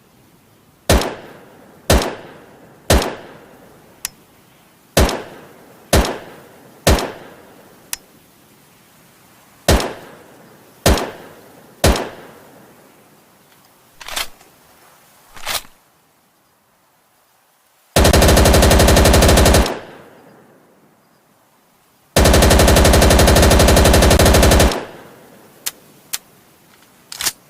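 Thompson M1928 submachine gun, firing .45 ACP. It fires single shots about once a second, each with a short echo, then two long fully automatic bursts of roughly two and two and a half seconds, then a few more shots near the end.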